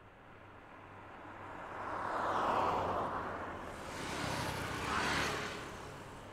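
Road noise inside a moving car: a steady low hum under rushing air that swells twice, peaking about two and a half and five seconds in.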